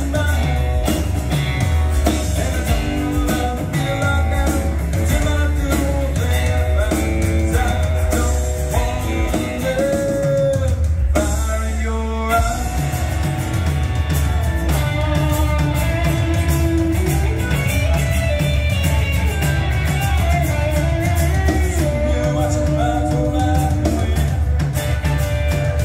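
Live country-rock band playing: drum kit, electric bass, acoustic and electric guitars, with a voice singing at times. The drums drop out briefly about eleven seconds in, then the beat comes back.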